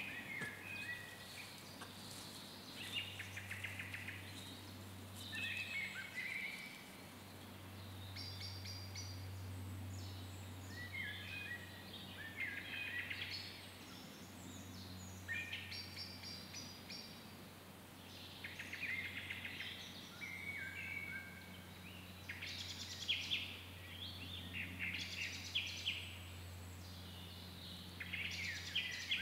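Songbirds singing short, varied phrases every two to three seconds, over a low steady hum.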